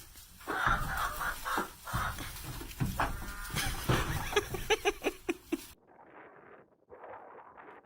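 Chickens clucking, a busy run of short repeated calls that comes several times a second toward its end. It cuts off suddenly near the end and gives way to a fainter, duller sound.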